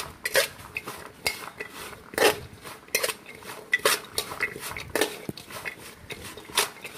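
Diced raw mango pieces mixed by hand in a steel bowl, clattering and scraping irregularly against the metal several times a second.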